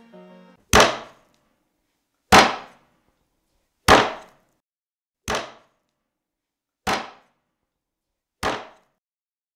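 A meat cleaver chopping through a rack of ribs into a wooden cutting board. Six sharp chops come about a second and a half apart, and the last three are softer.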